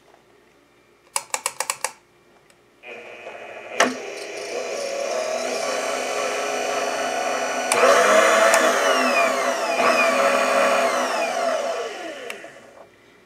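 Bridgeport mill's electric table power feed motor running on its first test. A quick run of clicks comes about a second in. The motor starts with a steady whine about three seconds later, gets louder midway with falling tones as the speed is changed, and winds down with falling pitch near the end.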